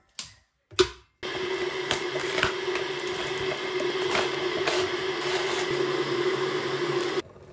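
Two clicks as the De'Longhi electric kettle's lid is shut and it is switched on, then the kettle heating water with a steady rushing hum. Small crinkles and rips of an instant noodle cup's lid and seasoning packets sound over it. The hum cuts off abruptly near the end.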